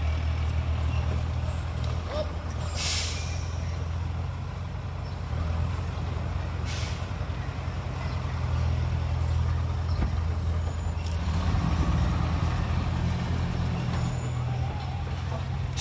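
Diesel dump truck engine running steadily at low speed as the loaded truck manoeuvres. Four short air-brake hisses come roughly every four seconds.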